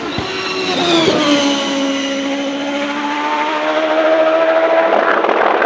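A high-revving race car engine under hard acceleration. Its pitch drops briefly about a second in, as with an upshift, then climbs steadily while it grows louder, and the sound cuts off abruptly at the end.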